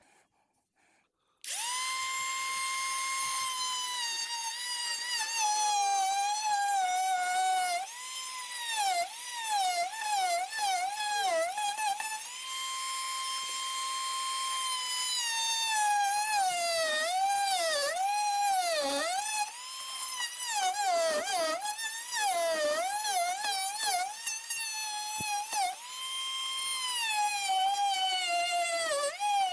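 Power drill motor whining at a high pitch. It starts after a brief silence, holds level at times, and at others dips and wavers in pitch as the drill is loaded and eased off, again and again.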